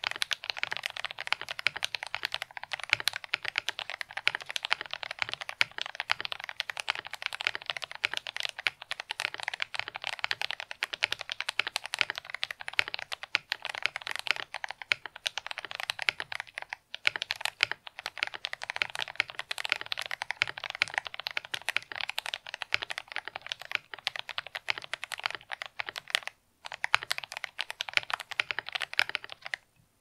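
Fast, continuous typing on a YMDK 84 mechanical keyboard in a walnut case, with lubed Akko Lavender Purple tactile switches on a PC plate, case foam, tape mod and MDA-profile keycaps: a dense run of smooth clacks. The typing pauses briefly twice, about halfway and a few seconds before the end, and stops just at the end.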